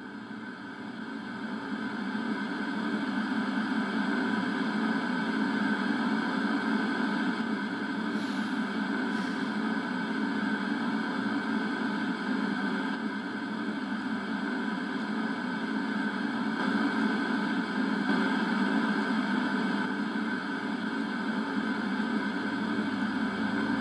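Steady droning hum mixed with hiss, a sound-design drone that swells in over the first couple of seconds and then holds, with two faint high whooshes about eight and nine seconds in.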